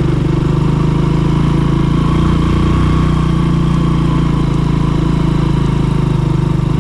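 A vehicle's engine running steadily while driving along, a low, even hum with no change in pace.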